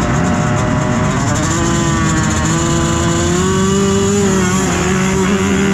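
Motocross bike engine revving hard, its pitch climbing over a couple of seconds and then holding high.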